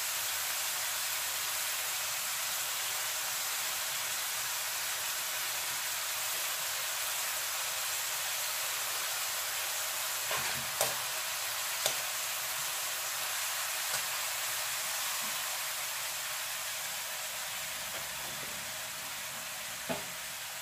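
Minced beef and onion sizzling steadily in a wok. A few short clicks of a slotted spatula against the pan come a little past the middle and once near the end, and the sizzle eases slightly toward the end.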